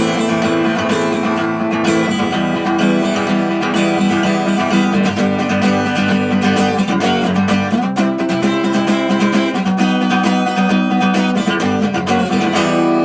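Instrumental music: guitar chords strummed steadily throughout.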